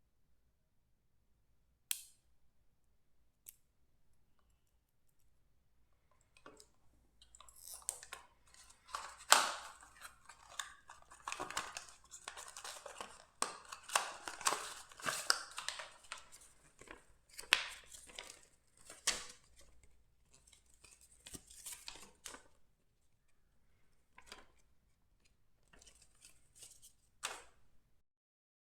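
Hands handling a product box and its packaging: a few sharp clicks, then a long spell of crinkling, rustling and clicking that thins out into scattered clicks near the end.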